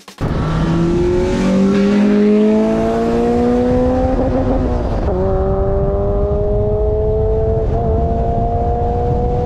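Car engine accelerating in gear over tyre and road noise. Its pitch rises steadily, drops at a gear change about five seconds in, then climbs slowly again.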